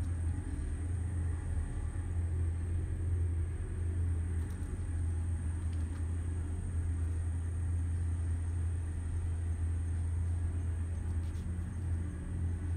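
Steady low engine rumble, an even hum that holds without change.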